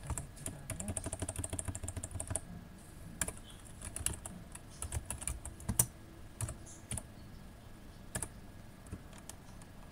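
Computer keyboard typing: a quick run of keystrokes for the first two seconds or so, then slower, scattered keystrokes that thin out over the second half.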